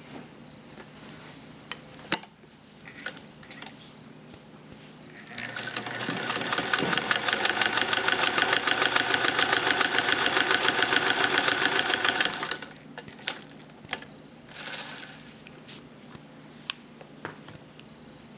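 A 93-year-old Singer 128K sewing machine stitching a seam: a fast, even clatter of about six stitches a second that starts about five seconds in and stops about seven seconds later. A few light clicks and fabric handling come before and after it.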